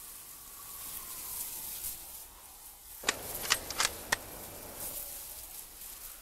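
Rifle shot, a sharp crack about halfway through, followed within a second by three quick sharp clicks of the bolt being worked, over a steady hiss.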